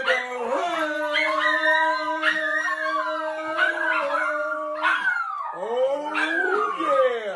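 Long, drawn-out howling: one note held steady for several seconds, with a second voice moving above it, then several overlapping howls sliding down in pitch near the end.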